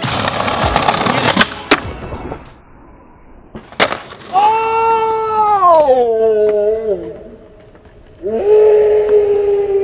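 Skateboard wheels rolling on pavement with clacks, then one sharp crack of the board about four seconds in. After it come two long drawn-out shouts, each held on one pitch and sliding down at the end.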